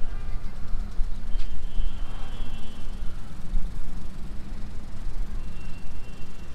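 Low, fluctuating outdoor rumble, with a few faint high chirps and a single click about a second and a half in.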